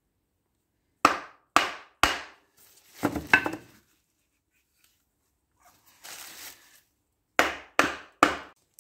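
Wooden block knocking a splined drive coupling onto the shaft of a Linde HPR100 hydraulic pump. There are three sharp knocks about a second in, a quick rattle of knocks around three seconds, a brief rustle, and three more knocks near the end.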